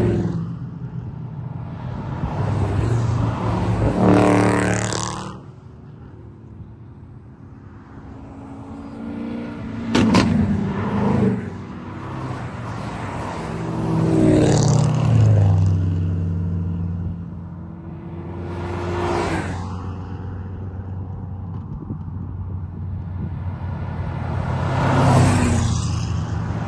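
Performance cars driving past one after another, each engine and exhaust swelling as it comes by and fading away, about five passes in all, one of them a black Chevrolet Camaro. A sharp crack sounds about ten seconds in.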